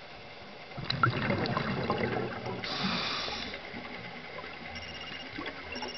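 Scuba diver breathing out through a regulator underwater: a rush of exhaust bubbles that starts about a second in and lasts a couple of seconds.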